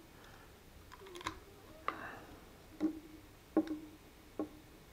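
A handful of light plastic clicks and taps, spaced about a second apart, from handling a power bank and a USB charging cable and pushing the cable's plug into the power bank.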